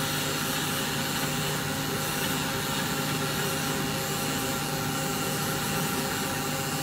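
Haas SL20 CNC lathe running with its spindle turning at about 1000 RPM: a steady machine hum with a few steady tones, as the tool takes a light hand-jogged facing cut across the end of a cold-rolled steel bar.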